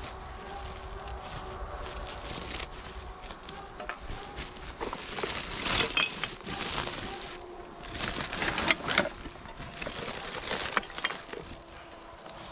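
Woven plastic sacks packed with old tins and glass bottles, rustling in several bursts as a hand pulls them open and handles them.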